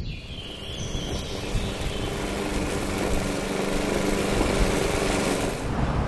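A motor running with a steady hum and a rushing hiss, growing louder over the first few seconds; the high hiss drops away shortly before the end.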